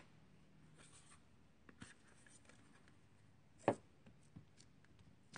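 Faint rubbing and handling of paper and craft supplies on a tabletop, with one sharp click a little before the fourth second.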